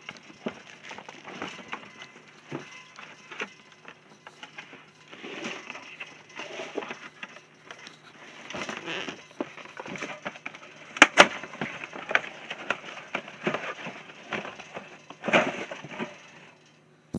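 Close crackling and rustling handling noise at the microphone, with scattered clicks and a pair of sharp cracks about eleven seconds in, over a steady low hum.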